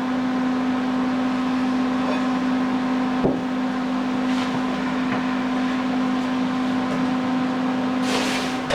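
Kenmore microwave oven running with a steady hum, with a single click about three seconds in, cutting off at the end. The oven is one with a defect that lets it run with its door open.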